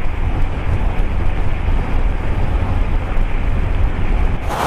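Heavy wind rumble on the microphone with road noise from a motorcycle cruising at highway speed, steady and deepest in the low end. It cuts off abruptly near the end, giving way to a quieter, brighter roadside background.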